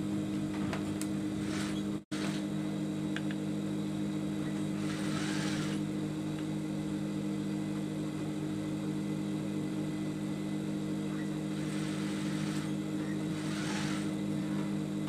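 A steady low electric hum, like a mains-powered motor running, that cuts out for an instant about two seconds in. Brief scraping and handling sounds come about five seconds in and again near the end, as small metal parts around the sewing machine's feed dog are worked loose.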